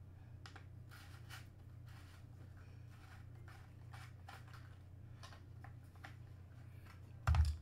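Faint, scattered clicks and scrapes of a screwdriver working small flathead screws in an airsoft Tavor rifle's body, over a steady low hum. A louder knock comes near the end.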